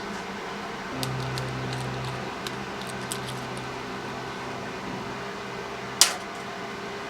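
Steady electrical machine hum. A deeper hum comes in about a second in and fades away, with a few small ticks, and one sharp click about six seconds in.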